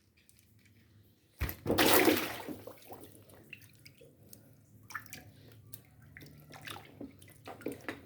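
A sudden loud splash of water about a second and a half in, fading over a second, followed by scattered smaller splashes and drips.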